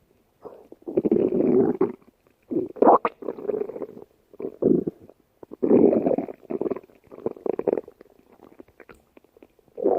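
A stomach growling in a run of irregular rumbles, each lasting up to a second or so, with short gaps between; the last few are fainter.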